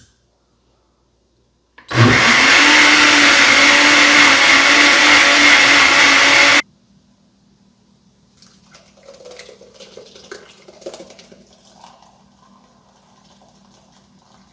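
Countertop blender with a glass jug blending dry coconut pieces in warm water to make coconut milk. It starts about two seconds in, runs loud and steady for about four and a half seconds, and cuts off suddenly.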